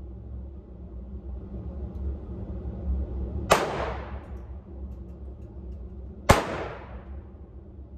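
Two gunshots at a shooting range, about three seconds apart, each with a fading echo, over a steady low rumble.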